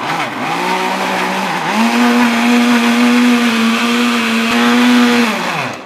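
Philips Walita blender motor running, beating eggs with olive oil and salt. Its pitch rises once at under two seconds in, holds steady, then falls away as the motor winds down and stops near the end.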